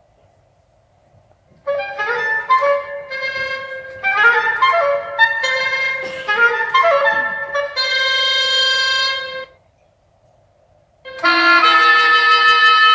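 Solo wind-instrument music in a modern, contemporary style: after a second or so of quiet, short phrases of changing notes, a brief pause, then a louder held, many-toned sound near the end.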